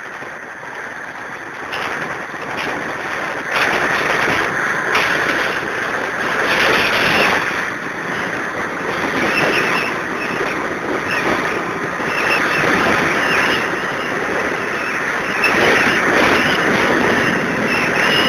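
Wind rushing over the microphone, mixed with engine and tyre noise from a vehicle travelling along a road. It gets louder about three and a half seconds in.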